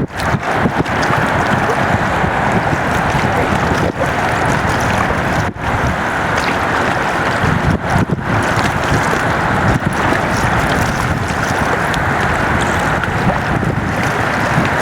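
Wind rushing and buffeting the microphone, a loud steady noise, broken a few times by very brief dropouts.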